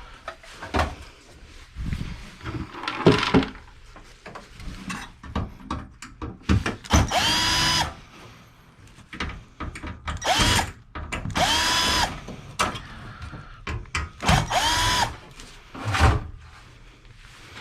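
A power drill run in four short bursts, its motor whine rising as each burst starts, with knocks and rattles of metal computer parts being handled in between.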